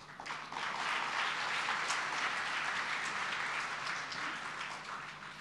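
Audience applauding, building up just after the start, holding steady, then dying away near the end.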